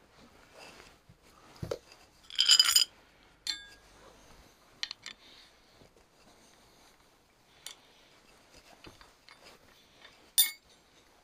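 Scattered small metallic clinks and clicks of hand fiddling with the valves on a rack of four carburettor vacuum-sync gauges, with the engine not yet running. The loudest is a ringing clink about two and a half seconds in, and a sharp click comes near the end.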